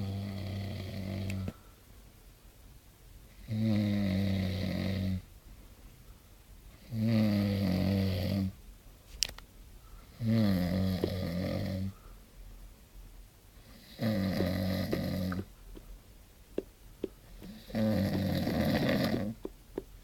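A man snoring in regular, drawn-out snores, six in all, each about a second and a half long and coming roughly every three and a half seconds.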